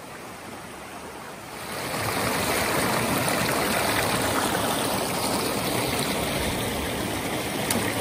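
Rain-swollen creek rushing and churning over rocks, a steady rush of water that gets louder about two seconds in.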